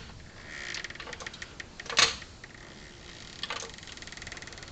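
Quick runs of metallic clicking, like a hand ratchet being worked, with one sharp metal clank about two seconds in.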